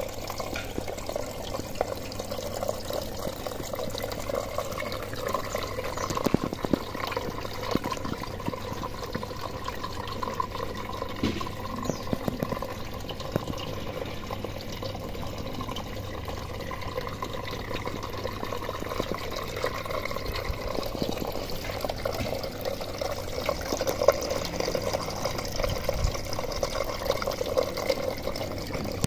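Water pouring and trickling steadily: the circulating flow of a hydroponic lettuce system running back into its reservoir. It gets a little louder near the end.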